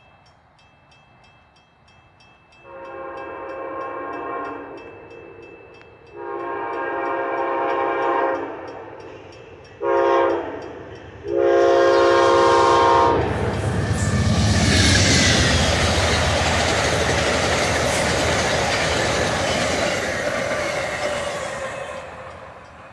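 Amtrak passenger locomotive horn sounding the grade-crossing signal: long, long, short, long. Then the train passes at speed, a loud rush and rumble of wheels on rail that fades near the end. A crossing bell rings faintly before the horn.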